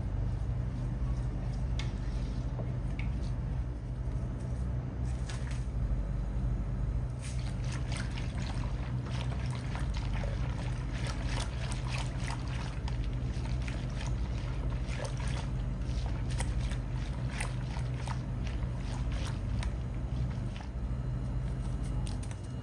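A whisk stirring thick yogurt in a stainless steel pot: wet sloshing with many quick light clicks and scrapes of the whisk against the pot, thickest through the middle, over a steady low hum.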